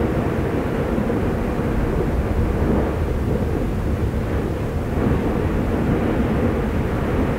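Fagradalsfjall's erupting crater giving a steady, deep rumbling roar with no separate blasts standing out.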